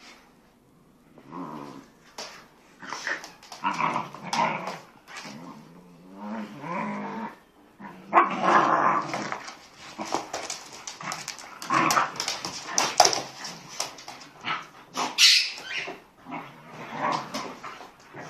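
A Patterdale terrier and an American bulldog play-fighting: repeated growls and short barks in irregular bursts throughout.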